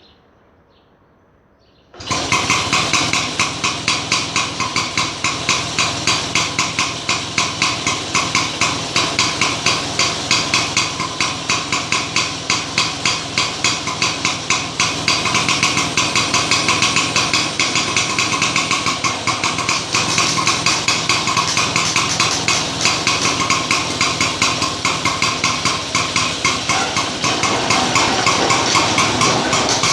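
Engine of a vintage Atco Standard lawn mower running steadily with a rapid, even, clattering beat. It starts abruptly about two seconds in, after near silence.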